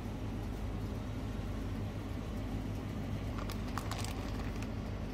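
Steady low hum of a convenience store's refrigerated display shelf, with a short run of plastic crinkles about three and a half seconds in as a wrapped sticky rice burger pack is grabbed and pulled from the shelf.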